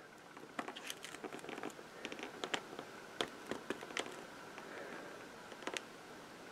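Faint, irregular small taps and light rustling of cardstock being handled and pressed by fingers.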